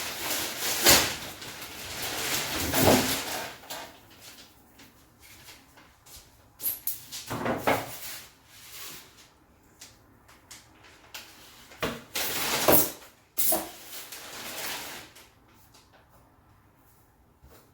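Packaging of a large fridge freezer being handled as it is unpacked: scraping, rustling and knocking in several bursts. The loudest bursts come in the first few seconds and again about twelve to fifteen seconds in, with quieter handling between.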